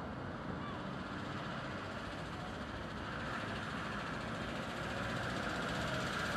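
A small car driving slowly closer, its engine and tyres a steady hum that grows a little louder.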